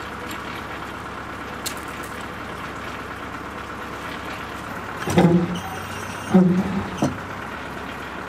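Chainsaw running steadily, revved briefly three times in the second half.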